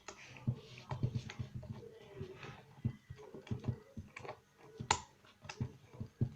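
Desk-fan parts being handled and unscrewed by hand: irregular light clicks and knocks, with one sharper click about five seconds in.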